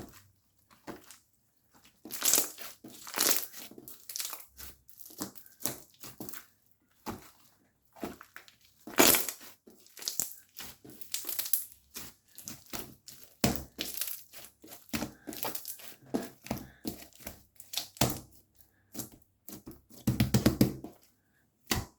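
Clear slime being squeezed, stretched and pressed by hand, giving dense, irregular crackling and clicking in bursts.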